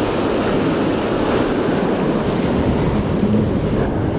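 Steady rush of river water pouring over a low dam spillway, with wind buffeting the microphone.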